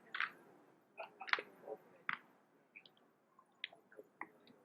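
Faint, irregular sharp knocks and clicks from 1903 Springfield rifles being handled in drill: hands slapping and catching the rifles, with about a dozen strokes in a few seconds.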